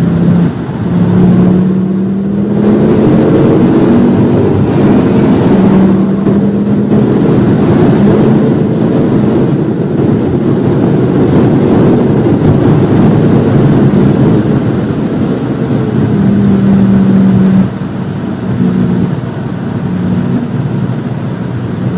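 Volvo V50 T5's turbocharged 2.5-litre five-cylinder engine, heard from on board under hard acceleration: its note climbs and breaks at each upshift, then holds at full throttle. About three-quarters of the way through the throttle is lifted, the sound drops sharply, and the engine runs lower with short breaks as the car slows for a corner.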